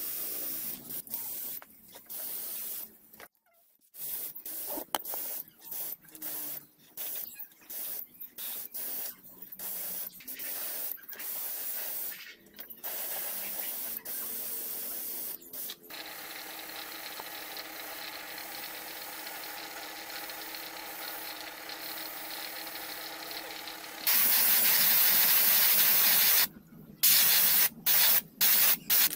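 Gravity-feed paint spray gun hissing as it sprays paint, triggered in many short bursts of about a second or less. In the middle it gives a quieter steady hiss for several seconds, then a loud continuous blast of about two seconds, followed by a few quick bursts near the end.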